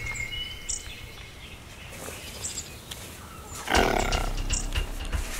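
Faint bird chirps, then about three-quarters of the way through a loud, rough animal growl breaks in and lasts about a second.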